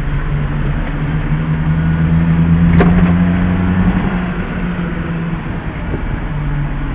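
1994 Suzuki mini-truck's small three-cylinder engine running as it drives slowly, heard from inside the cab. It pulls a little louder for a couple of seconds, then eases off. A single sharp click comes about three seconds in.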